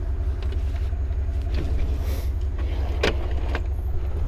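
Truck engine idling with a steady low rumble while a metal slide-out tray drawer is pulled open on its slides, giving a few sharp clacks about one and a half and three seconds in.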